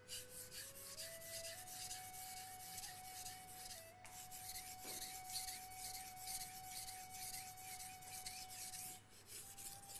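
Steel knife blade stroked back and forth on a 1000-grit whetstone: repeated scraping rubs of steel on stone. The knife is held at a raised angle, so the strokes are working the cutting edge itself.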